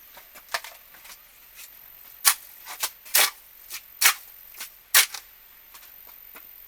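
A series of irregular sharp knocks and taps, four louder ones roughly a second apart in the middle, among fainter ticks.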